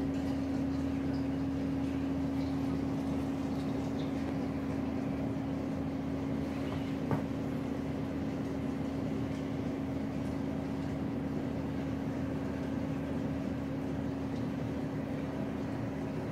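Reef aquarium powerheads and pumps running: a steady hum with one constant tone over an even hiss, with a single brief click about seven seconds in.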